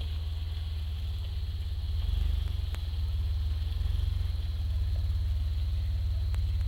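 Pickup truck engine running with a low, pulsing rumble as the truck pulls slowly away, growing a little louder about two seconds in.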